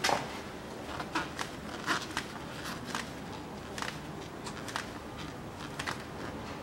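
Gloved hands screwing a new spin-on oil filter onto its housing: scattered light clicks and rustles at uneven intervals over a steady background hiss.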